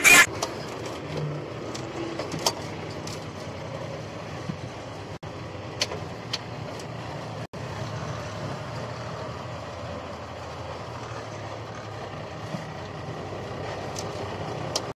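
Truck engine running, heard from inside the cab as a steady low hum with a few faint clicks.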